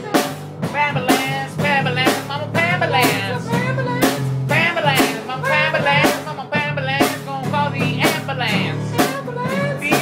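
A band playing a blues-style song: drum kit hits keeping a steady beat under bass and guitar, with a voice singing.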